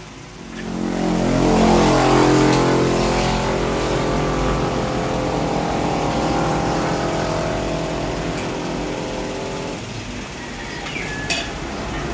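A motor vehicle's engine running close by, its pitch rising over the first couple of seconds and then holding steady before fading out about ten seconds in.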